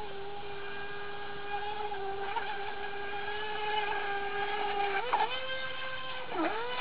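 Fast Chicken RC mono boat's Turnigy A36-46 2900kv brushless motor whining steadily at speed. Its pitch steps up about five seconds in, then dips briefly and climbs back near the end.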